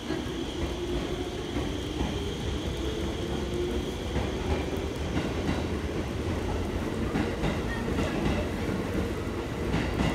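JR 211 series electric train pulling out of the station and running past, a steady low rumble with wheels clicking over the rail joints.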